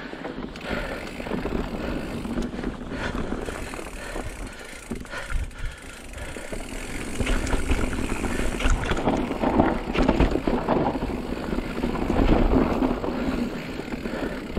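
Mountain bike descending a rough, rocky trail: tyres grinding over dirt and rock, with the chain and frame rattling and knocking through the bumps.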